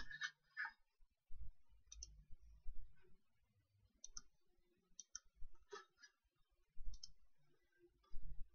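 Computer mouse clicking at irregular intervals, some clicks in quick pairs, with faint low rumbling in between.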